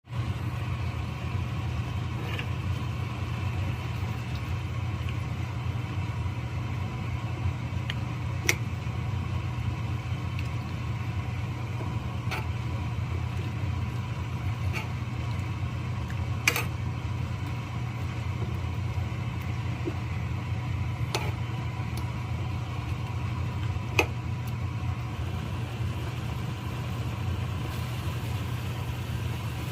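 A steady low mechanical hum, like a motor running, with a handful of sharp clicks or taps a few seconds apart.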